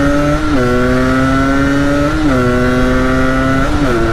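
Yamaha DT125X two-stroke 125 cc single-cylinder engine pulling under way, its note climbing steadily and dipping sharply three times as it shifts up through the gears.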